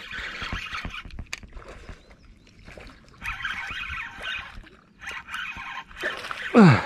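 Hooked bowfin splashing at the surface in three separate bursts as it is hauled in on the line, with a short, loud vocal cry falling in pitch near the end.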